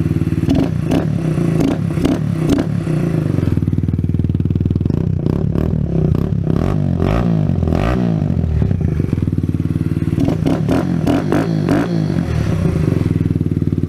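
Kawasaki Z125 Pro's 125 cc single-cylinder four-stroke engine, fitted with a Yoshimura exhaust and Chimera intake, idling with repeated short throttle blips in three bunches.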